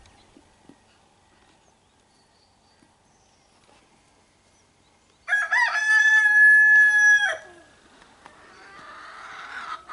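A rooster crows once, about five seconds in, in one long call of about two seconds that rises at the start and then holds steady. Softer chicken clucking follows near the end.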